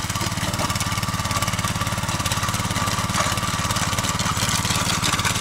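Petrol walk-behind tractor (motoblock) running steadily at raised throttle while tilling garden soil, growing slightly louder.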